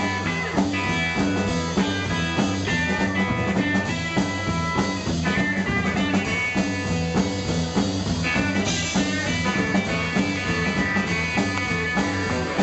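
Live band playing an instrumental break: a Telecaster-style electric guitar plays a run of quick lead notes over an upright bass line and drum kit.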